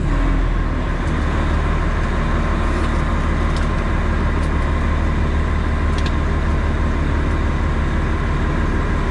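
2003 Pierce Dash fire truck underway: its diesel engine and road noise make a steady, loud, low drone with no rise or fall.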